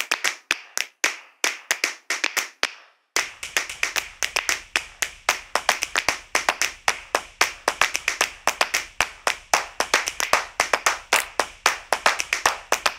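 Percussion-only break in a children's dance soundtrack: rhythmic hand claps with no melody, spaced at first, then after a short pause about three seconds in, a fast, even run of claps.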